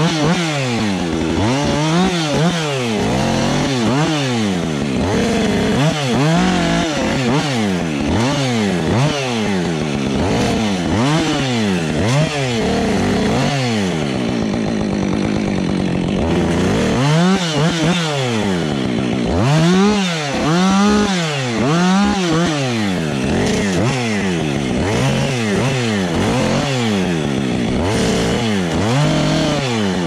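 Husqvarna 555 two-stroke chainsaw limbing a felled red pine, revving up and falling back over and over as it cuts through branch after branch, with a short steadier stretch about halfway through.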